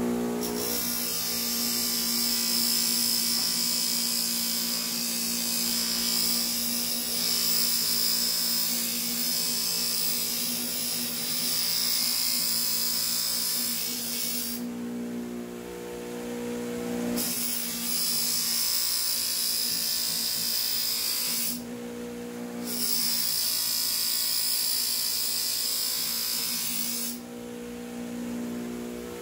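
Bench buffer motor running, with the hiss of the Fiskars bypass lopping shears' blade edge pressed against the spinning buffing wheel in three long passes. Each pass breaks off into a short stretch of motor hum alone. The wheel is honing the edge, knocking off the feathering (burr) left by filing.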